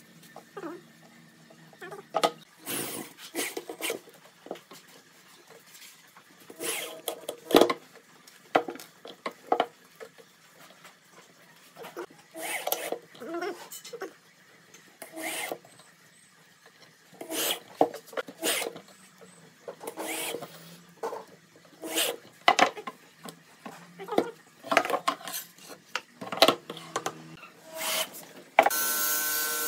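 Wooden boards and a steel hinge being handled on a wooden workbench, giving scattered knocks and scrapes. Near the end an electric drill starts and runs steadily, driving a screw through the hinge into the wood.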